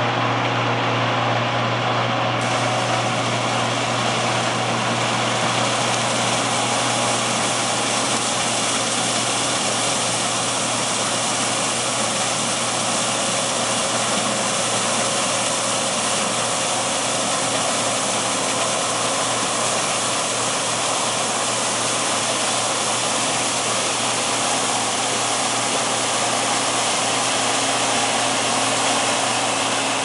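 John Deere C670 combine harvester running steadily while cutting oilseed rape: a constant low engine hum under a broad, even rush of machine noise.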